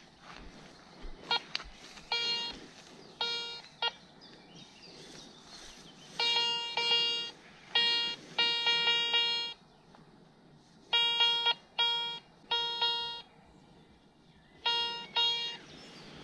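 Metal detector beeping as its coil is swept over grass: about a dozen beeps of one steady, unchanging pitch, some short and some held for up to a second, coming in groups of one to three, signalling metal under the coil.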